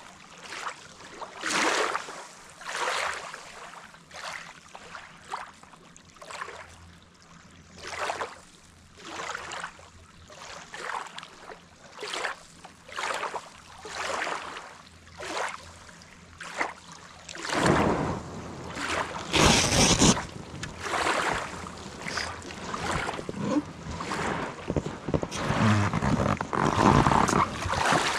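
Small waves lapping on a gravel lakeshore in a steady rhythm, about one wash every second or so. In the last ten seconds the water noise grows louder as an inflatable packraft is paddled in, ending in splashing as it reaches the shore.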